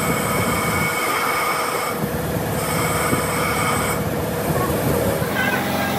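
Steady metallic squealing over a low rumble, changing abruptly about every two seconds: machine work on metal.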